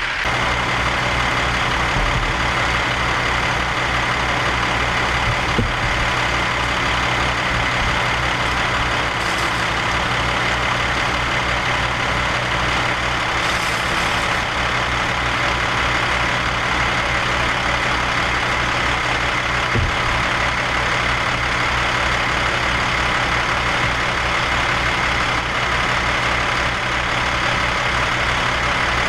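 A heavy engine running steadily at constant speed, with a low, even pulsing, a thin steady whine above it and a broad rushing noise over the whole.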